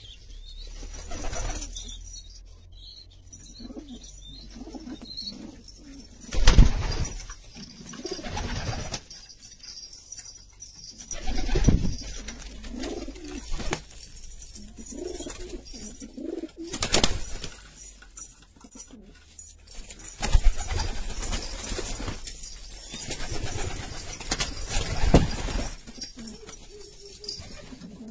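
Domestic pigeons cooing in a loft, low warbling calls coming again and again. Several sudden sharp noises break in, the loudest about six seconds in.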